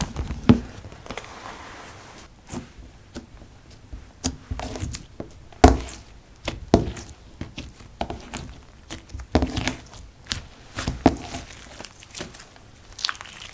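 Slime being mixed and squished by hand, with irregular sticky pops and clicks.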